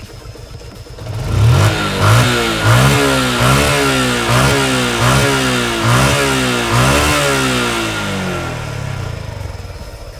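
Yamaha Exciter 2010 motorcycle's 135 cc single-cylinder four-stroke engine being blipped on the throttle repeatedly, its pitch rising and falling about once a second, then settling back toward idle near the end. The cam chain tensioner and rocker arms have just been reworked to cure a cam and rocker rattle, and the engine is being revved to let that top end be heard.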